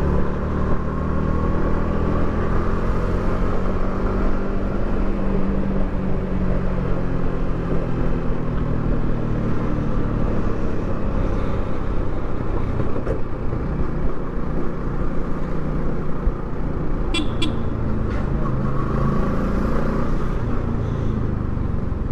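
Yamaha R15 V3's 155 cc single-cylinder four-stroke engine running on its stock exhaust while cruising, its pitch rising and falling gently with the throttle. Two short horn toots sound about seventeen seconds in.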